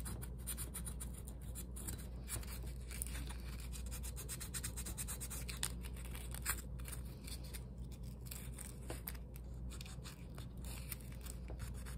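Knife blade whittling a block of poplar wood by hand: many quick, irregular scraping strokes, over a faint low hum.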